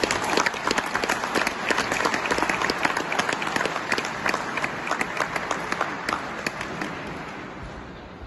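Audience applauding, dense irregular clapping that dies away over the last couple of seconds.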